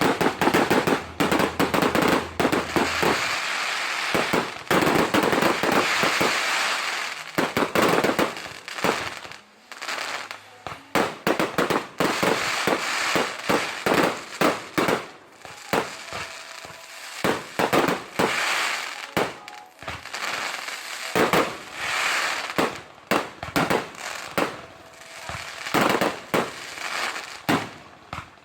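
Aerial fireworks display: rapid, irregular bangs of shells bursting, overlapping with dense crackling.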